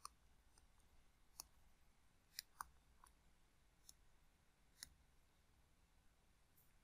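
Faint, irregular clicks of a stylus tapping on a tablet screen while writing and selecting on it, over near-silent room tone. Two taps come close together about two and a half seconds in.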